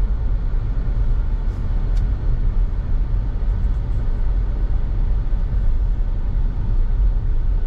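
Steady low rumble with no clear pitch, loud and unbroken, with a couple of faint ticks about two seconds in.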